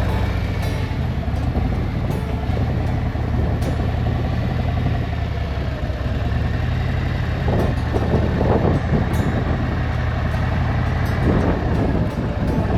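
Harley-Davidson V-twin motorcycle engine running steadily on the move, with rushing wind noise. It swells louder about eight seconds in and again near the end.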